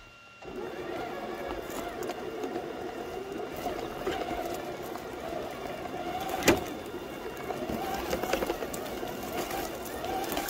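Traxxas TRX-6 RC crawler pulling away about half a second in and crawling on: its electric motor and gear drive whining, wavering with throttle, as the tyres and chassis brush through dry grass and twigs. One sharp knock about six and a half seconds in.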